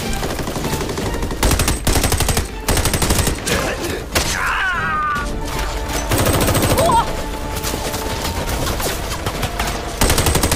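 Several bursts of rapid automatic rifle fire in a movie gun battle, with shots in quick succession. A short falling tone sounds about halfway through.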